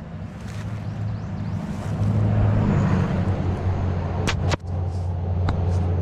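Low, steady rumble of road traffic crossing the bridge overhead, swelling about two seconds in, with a couple of brief sharp clicks in the second half.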